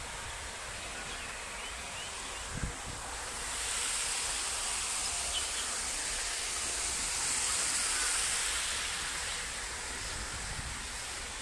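Outdoor park ambience: a steady hiss that grows louder for several seconds in the middle, with one dull bump about two and a half seconds in.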